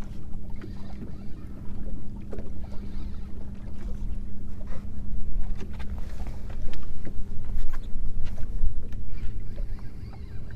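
Choppy water lapping and slapping against a bass boat's hull, with scattered small knocks and a steady low electric hum under a low wind rumble.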